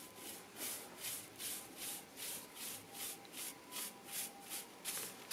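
Broom bristles sweeping loose grit and crumbled concrete across a concrete floor, short quick strokes about two a second.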